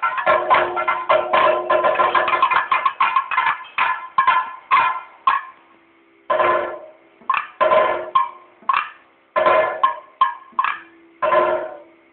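Kathakali stage percussion: sharp drum strokes with ringing metallic beats, a fast dense run for the first four seconds, then slowing to single strokes spaced about half a second to a second apart with short pauses between them.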